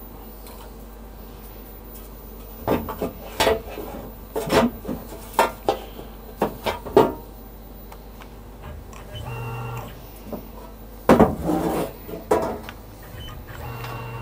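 Sheet-metal way covers on a Tormach CNC mill knocked and clattered as they are lifted and handled among metal chips, in a string of sharp knocks. Twice a steady motor hum with a fixed pitch comes in, briefly just past halfway and again near the end, as the mill's table is jogged along its axis.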